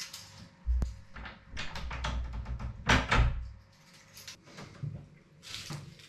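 An apartment's front door being shut and handled: a sharp knock about a second in, clunks and rattling, and a louder thump about three seconds in, then a few smaller clicks.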